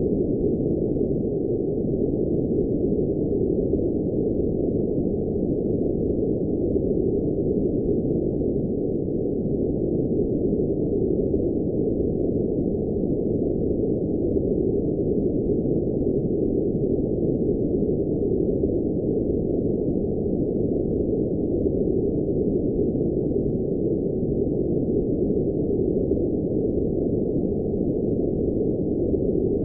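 Continuous electronically generated noise, sold as blue noise, heard as a steady, low, muffled rush with nothing above about 1 kHz.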